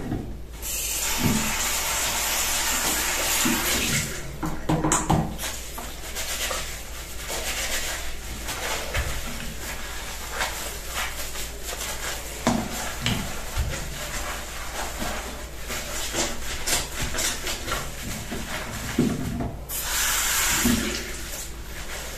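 A bathroom mixer tap runs into the washbasin with a steady hiss for a few seconds, then a cloth rubs and wipes over the ceramic basin and tap with small knocks and squeaks. The tap runs again briefly near the end.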